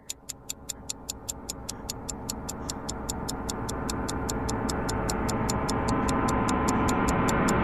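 A steady ticking, about five ticks a second, over a drone that swells gradually louder throughout: an edited-in suspense build-up sound effect.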